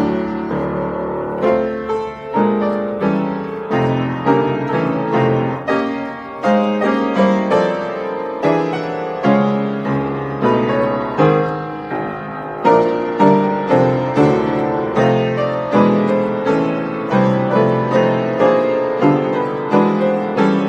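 Upright piano playing a Romantic-era classical piece, notes and chords struck in a steady, regular pulse.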